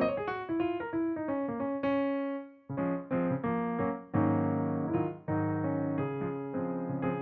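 Background piano music: a melody of single notes that ends a couple of seconds in, then fuller, sustained chords.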